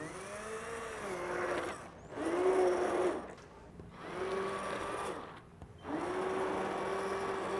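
Immersion blender running in a stainless steel bowl of hot custard base, blending in cream cheese for a cream cheese ice cream. The motor runs in four short spells with brief pauses, its pitch rising as each starts and dropping as it stops.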